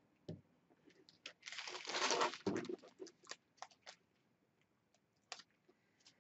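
Faint crinkling of plastic bags and small clicks as diamond-painting drill bags and the kit are handled, with a longer rustle about two seconds in.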